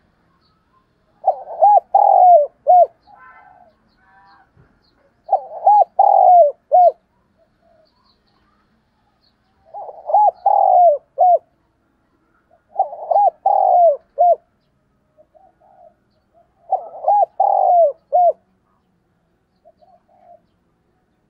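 Spotted dove cooing: five song phrases a few seconds apart, each a quick run of three or four arched coos, with a few soft notes between phrases.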